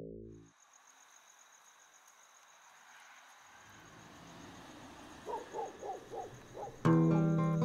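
Night ambience: crickets chirring steadily in a fast high pulse, with a quick run of about five short animal calls about two thirds in. Near the end, music comes in suddenly with sustained notes and is the loudest sound.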